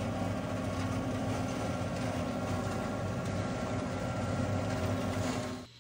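John Deere 2038R compact tractor's diesel engine working steadily under load while driving a PTO flail mower through tall brush: an even engine drone mixed with the rush of the spinning flails. It stops abruptly near the end.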